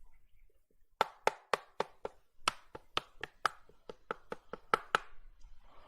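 A run of about sixteen sharp taps in an uneven rhythm, some three or four a second, several with a faint hollow ring.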